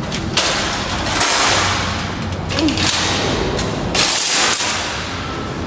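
Metal wire shopping cart being pulled free of a row of nested carts and rolled over concrete, its basket and wheels rattling in several clattering stretches.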